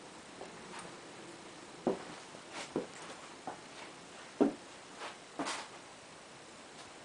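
A series of about ten irregular knocks and clicks in a small room, unevenly spaced, the loudest about halfway through, over a low steady hiss.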